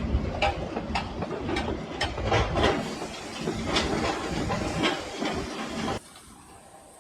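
Irregular metallic clinks and knocks over a steady rushing hiss, cutting off abruptly about six seconds in to a faint background hiss.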